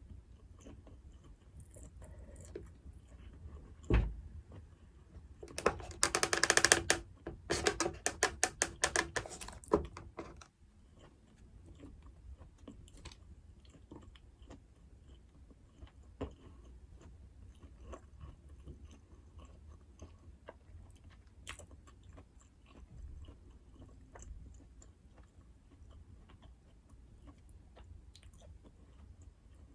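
Close-miked chewing and eating sounds. There is a sharp knock about four seconds in, then a loud run of quick crackly strokes for about five seconds, then quieter wet chewing.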